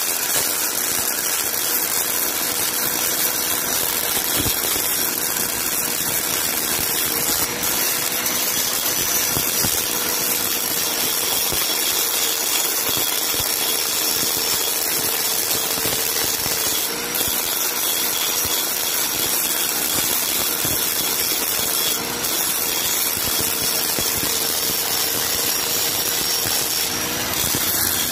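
Electric angle grinder running steadily, its abrasive disc grinding the rim of a hard river-stone mortar: a constant motor whine over a gritty grinding hiss.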